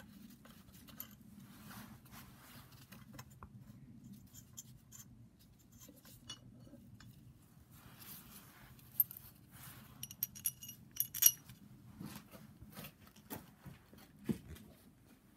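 Metal tools and parts clinking and scraping during hand work on the cam-locking jig atop a BMW N54 cylinder head: scattered light clicks, then a cluster of sharp ringing clinks about nine to eleven seconds in, over a steady low hum.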